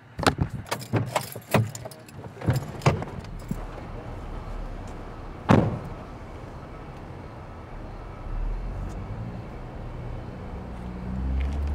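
Car doors opening and people climbing out of a car: a run of clicks and clunks over the first few seconds, then a single loud thud of a car door being shut about five and a half seconds in, followed by a steady low hum.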